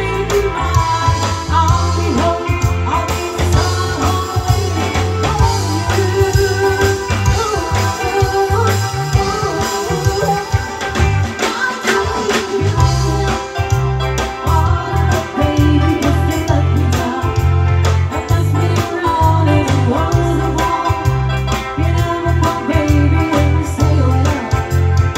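Live band playing a pop song through a PA system: women singing over electric guitars, bass, drums and keyboard with a steady beat. The bass and kick drum drop out for about a second near the middle.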